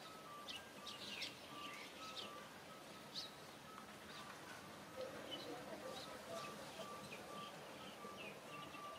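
Birds chirping, scattered short high calls, over a faint repeating melody of short, even tones.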